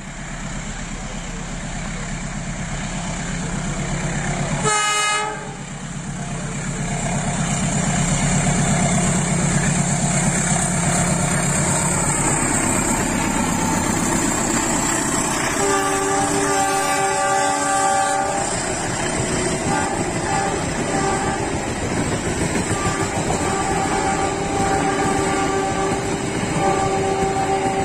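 CC 201 diesel-electric locomotive passing with a passenger train: a steady diesel engine drone, the horn giving a short note about five seconds in and a longer chord of several tones around sixteen seconds in, then the coaches rolling by on the rails.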